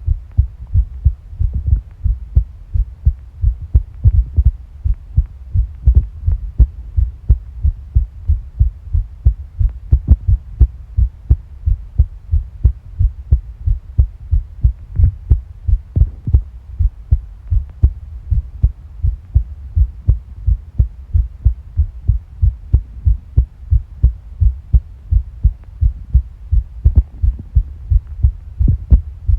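Human heartbeat picked up close against the body: a steady, even rhythm of low thumps, with a few faint higher sounds now and then.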